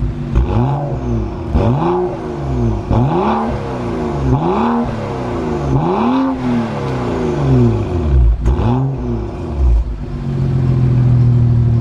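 BMW 640i Gran Coupe's turbocharged 3.0-litre straight-six, heard through a HE'ART aftermarket exhaust, revved in a string of quick throttle blips, each note rising and falling back. About ten seconds in it settles into a steady, held higher rev.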